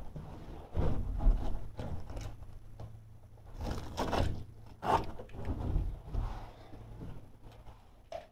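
Carpet being cut and pressed into a room corner by hand: irregular scrapes, rustles and knocks, with sharper ones about four and five seconds in.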